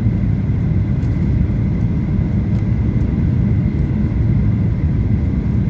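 Steady low rumble of cabin noise inside a Boeing 737-800 on approach with flaps extended, from its CFM56 engines and the airflow over the fuselage, with a faint steady high whine.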